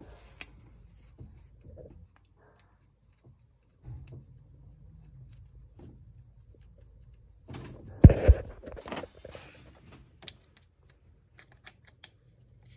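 Faint clicks and scrapes of a hand and a small driver working a drain plug back into a supercharger case. About eight seconds in comes a louder clatter with two sharp knocks close together.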